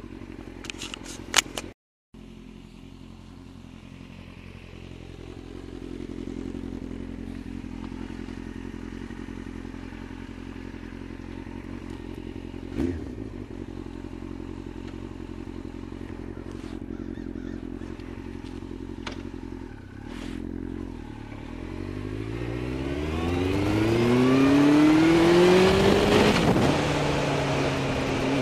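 Yamaha Fazer motorcycle engine, heard from the rider's helmet, running at low steady revs, then accelerating about two-thirds of the way through: the engine note climbs for several seconds with rising wind rush, then drops back at a gear change near the end. A few clicks near the start and a single knock about halfway.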